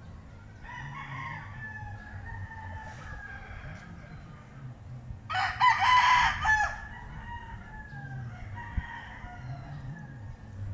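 Roosters crowing: one loud, close crow about halfway through, lasting about a second and a half, with fainter crows from other roosters before and after it.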